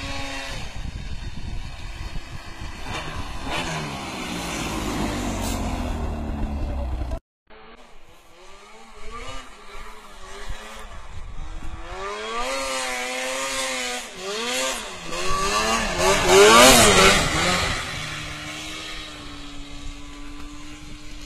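Snowmobile engines revving as the sleds pull through deep snow, the pitch rising and falling again and again. The sound breaks off sharply about a third of the way in, and near the end an engine holds a steady note.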